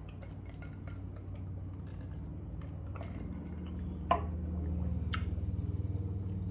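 Eating and food-handling sounds: scattered soft clicks and taps, with one sharper click about four seconds in, over a steady low hum.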